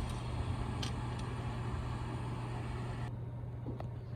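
Steady rushing air from a blower on the soldering bench, with a low hum underneath; the higher hiss cuts off about three seconds in, and a few light clicks of tools on the board.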